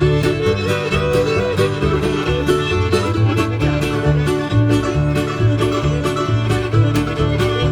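Old-time string band playing a fiddle tune: fiddle lead over mandolin, strummed guitar and bass notes on a steady beat.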